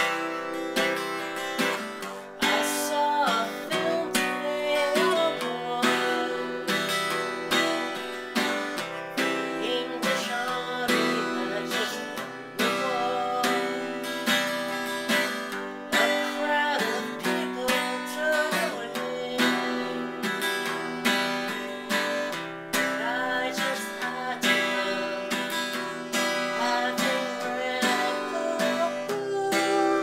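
Steel-string acoustic guitar with a sunburst cutaway body, strummed chords ringing on steadily.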